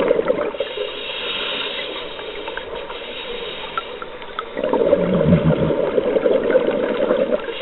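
Scuba regulator breathing underwater. There is a rush of exhaled bubbles at the start, then a quieter hissing breath in, then another long rush of bubbles from about four and a half seconds in.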